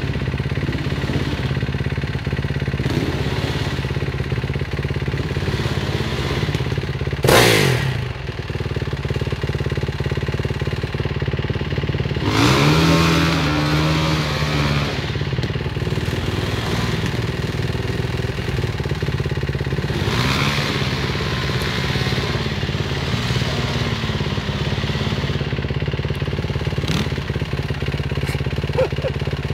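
Off-road enduro motorcycle engine running under load on a steep climb, with a sharp blip of throttle about seven seconds in and two longer spells of revving up and down later on as the bike fights its way up the slope.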